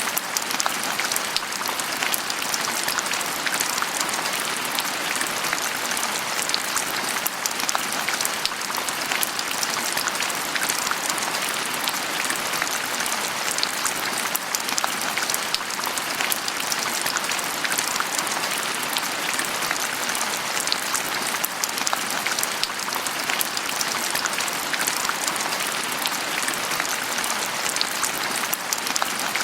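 Steady rain falling on a surface, a dense patter of drops.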